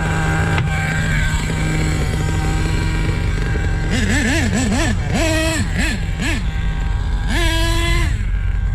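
HPI Savage nitro RC truck engine running at a steady low pitch. About four seconds in it starts revving in a string of quick throttle blips, with one longer high-pitched burst near the end.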